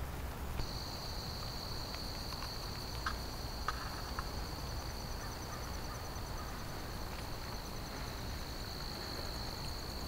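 A cricket trilling: one steady, high-pitched, unbroken trill that starts just after the beginning and runs on, over a low rumble, with a few faint clicks a few seconds in.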